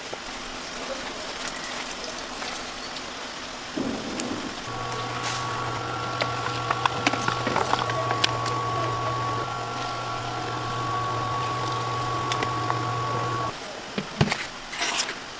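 Electric sashimi slicing machine running, cutting squid into thin strips: a steady motor hum with a high whine and light clicking. It starts about five seconds in, runs for about nine seconds and cuts off near the end, followed by a single knock.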